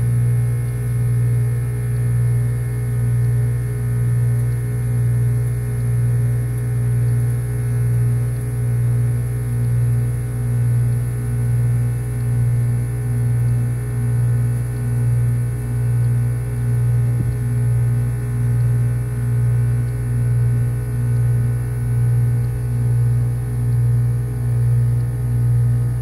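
Armstrong Air heat pump package unit running in defrost with its outdoor fan stopped: a loud, steady compressor hum that swells and fades slowly about once a second.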